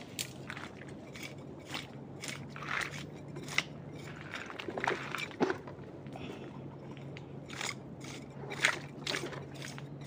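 Footsteps crunching over rough, debris-strewn ground, irregular steps with sharp crackles every half second or so. A faint steady low hum runs underneath.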